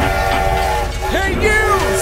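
Background music with held notes, with a few quick swooping, sliding-pitch sounds from about a second in.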